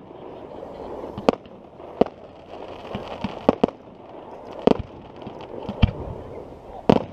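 Fireworks display: aerial shells bursting in a series of sharp bangs, roughly one a second, with a quick cluster of three or four bangs in the middle.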